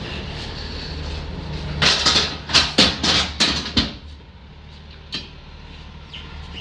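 Plastic stretch wrap being pulled off the roll around a pallet, with a run of about six short, sharp pulls in the middle, over a steady low hum.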